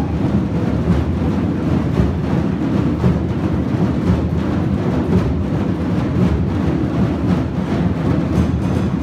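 A large drum circle playing djembes and other hand drums together: a dense, unbroken mass of overlapping low drum strokes.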